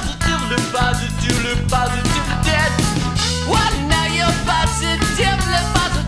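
Background music: an upbeat song with singing over a steady drum beat.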